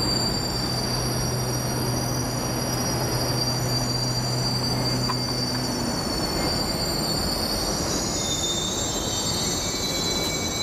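GO Transit commuter train at a station platform: a steady rumble with several high-pitched whines above it. A low hum drops out about halfway through, and the high whines shift and slide in pitch near the end.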